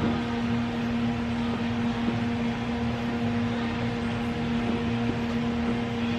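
A steady machine hum holding one unchanging pitch over a low rumble.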